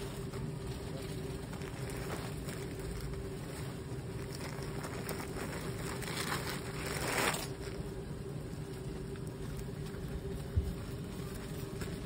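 Busy street background noise: a steady traffic rumble with a constant hum. A louder rushing swell comes about seven seconds in, and a single low thump near the end.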